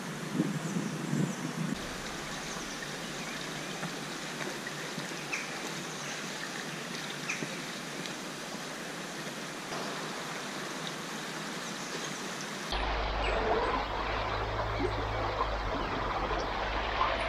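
Steady rush of a shallow stream flowing over stones. About thirteen seconds in it becomes louder and fuller, as heard from close beside the water.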